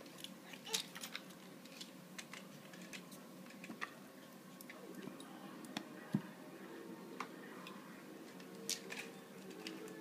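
Faint, scattered light clicks and taps as a crawling toddler handles small toys and a thin booklet on a carpet.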